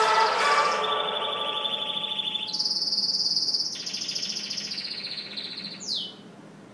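Canary singing a run of fast trills that shift up and down in pitch, ending about six seconds in with a quick falling note.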